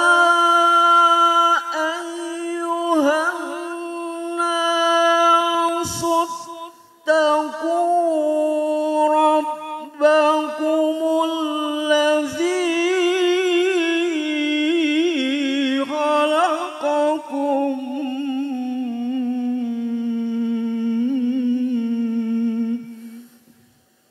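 A man's solo unaccompanied voice chanting Quran recitation in the melodic tilawah style through a microphone. He holds long, ornamented notes with a wavering vibrato and breaks off briefly about six seconds in. The last long phrase sinks lower before stopping near the end.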